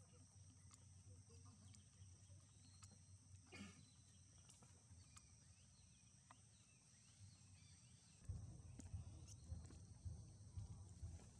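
Near silence: faint outdoor ambience with a steady high insect drone, and a low rumble that comes in about eight seconds in.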